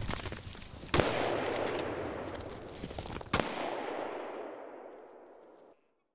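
Two hunting rifle shots about two and a half seconds apart, each followed by a long rolling echo that dies away; the sound then cuts off.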